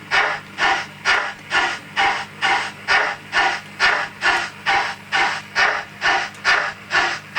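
Hornby Mallard model locomotive's Zimo sound decoder playing steam exhaust chuffs through its small onboard speaker. The chuffs come at an even beat of about two a second over a steady low hum.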